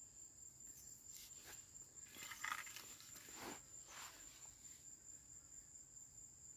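Faint scraping and rustling of bare hands scooping dry, crumbly soil, a few scrapes with the loudest about two and a half seconds in. A steady high-pitched insect trill runs underneath.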